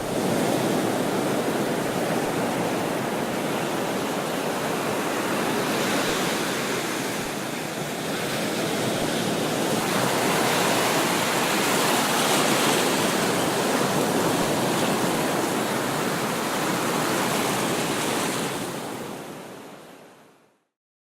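Sea surf washing onto a shore: a steady rush of waves that swells and eases slowly, then fades out near the end.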